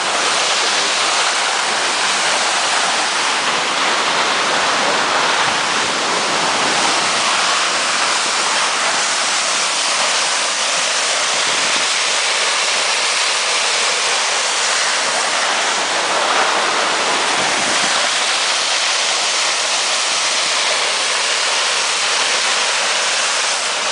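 Waterfall rushing: a steady, even roar of falling water close by.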